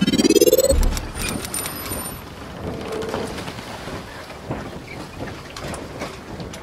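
Logo-intro sound effect: a rising whoosh that ends in a low boom under a second in, followed by a steady noisy hiss with scattered clicks and a brief high shimmer.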